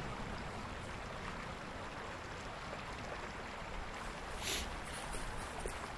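Steady low outdoor background noise, with one brief hiss about four and a half seconds in.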